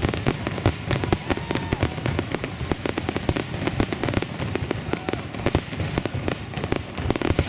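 Aerial firework shells bursting in a dense, continuous barrage, many bangs and crackles overlapping in quick succession.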